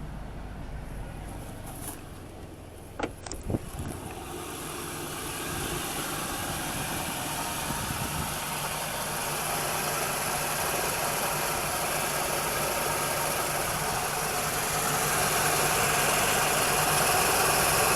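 A 2000 Chevy Cavalier's 2.2-litre four-cylinder engine idling, with a few sharp clicks about three seconds in as the air conditioning is switched on. A rushing noise then builds steadily louder under the idle as the AC load comes on, the load under which the belt goes slack, which the owner puts down to a belt tensioner on its way out.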